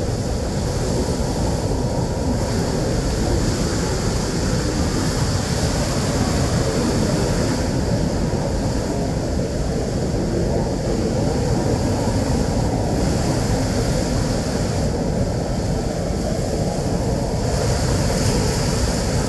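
Athirapally Falls in flood: a steady, unbroken rush of falling water.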